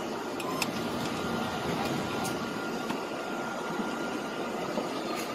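Heavy rain pouring down, a steady hiss with a few faint ticks.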